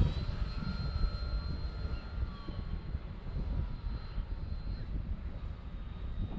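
Motor and propeller whine of an OMP Super Decathlon RC plane in flight: a thin, steady high tone that fades about five seconds in. Heavy gusty wind rumble on the microphone underneath.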